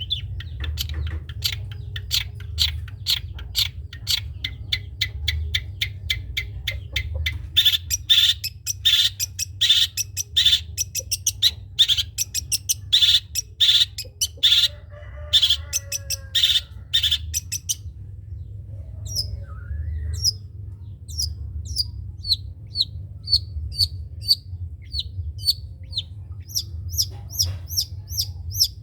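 Long-tailed shrike (cendet) singing in its rapid 'trotol' style: fast runs of short sharp notes, several a second, for much of the time. After a short pause near the middle it switches to a steady series of repeated slurred notes, about two a second. A low steady hum runs underneath.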